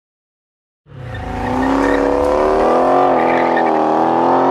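Car engine running at high revs, starting about a second in and holding a steady note with a low rumble under it at first and a slight dip in pitch about three seconds in, then cutting off abruptly: an engine sound effect for the channel's outro.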